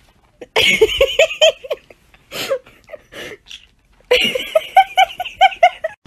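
A person laughing hard in two long bouts of rapid ha-ha pulses, the second bout starting about four seconds in.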